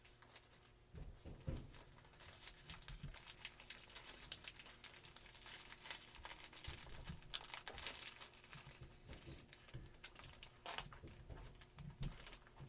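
Mail packaging being handled and torn open by hand: irregular crinkling and crackling with short tearing sounds.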